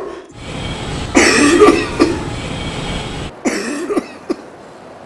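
Coughing from an anti-smoking 'coughing poster', a billboard that coughs at smokers. A loud fit of coughs comes about a second in and shorter coughs around three and a half seconds, over a low rumble that cuts off about three seconds in.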